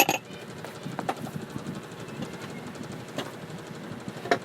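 Kitchen clatter: a steady hiss with a few sharp clicks and knocks of utensils and cookware, one near the start, one about a second in, one around three seconds in and one near the end.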